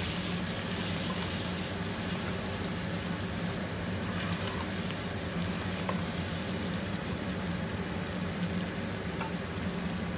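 Tomato and green chilli masala sizzling in oil in a non-stick pot, stirred with a wooden spatula, over a steady low hum.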